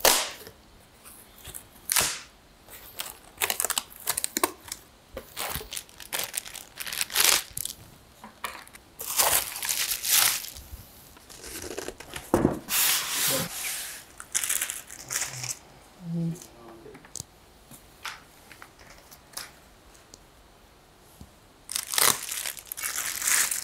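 Unboxing a 32-inch monitor: a cardboard box being pulled open and lifted off, with irregular bursts of cardboard scraping, tearing and rustling and a few knocks, then foam packing and plastic-bagged parts being handled with crinkling near the end.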